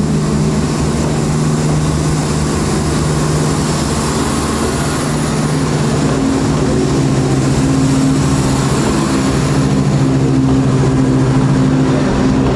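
Transport for Wales Class 170 Turbostar diesel multiple unit passing close by, its underfloor diesel engines giving a steady low drone with rail and wheel noise. It grows a little louder in the second half as the carriages go past.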